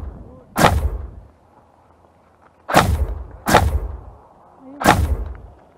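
Four single shots from a Specna Arms G36 blowback airsoft electric rifle fired in semi-auto, each a sharp crack that dies away within about half a second, spaced irregularly: one about half a second in, two close together around three seconds, one near the end.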